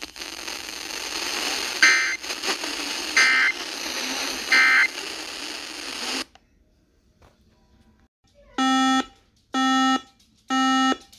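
Three short bursts of warbling data tones over radio hiss: the end-of-message signal of an Emergency Alert System weather-radio broadcast. The hiss then cuts off, and about two seconds later a buzzer-like electronic alert beep starts, pulsing about once a second.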